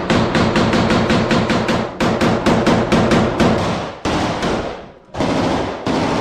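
Rifles firing in rapid strings inside a building, about six shots a second, with a short break about four seconds in before the firing resumes near the end.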